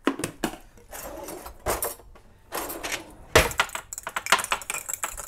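Kitchen handling sounds while an egg wash is made: a few knocks and rustles, a sharper knock about three and a half seconds in, then a quick run of light clinks of a utensil in a small ceramic ramekin as the egg is beaten.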